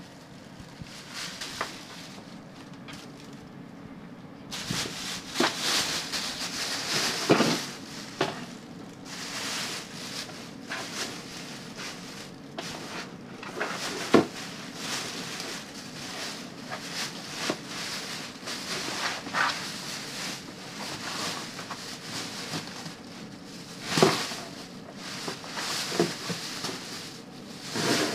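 A thin plastic garbage bag rustling and crinkling as a monkey's hands grab and pull at it. It comes in irregular bursts with a few sharp crackles, quieter at first and busier from about five seconds in.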